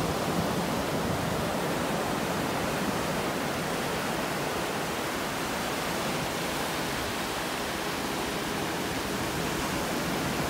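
Ocean surf breaking and washing up a sandy beach, heard as a steady, even wash of noise.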